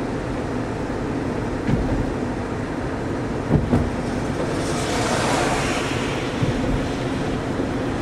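Car driving, heard from inside the cabin: steady engine and tyre noise with a low hum, a couple of knocks about two and three and a half seconds in, and a swell of hissing noise about five seconds in.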